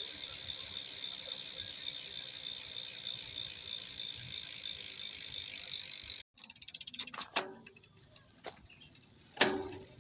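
Bicycle rear hub with three pawls freewheeling, the pawls clicking so fast they make a steady buzz. It cuts off suddenly about six seconds in, followed by three separate clicks, the last one the loudest.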